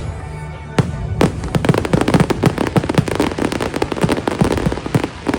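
Fireworks going off: a couple of sharp bangs about a second in, then a dense run of crackling pops, many per second, with the show's soundtrack music underneath.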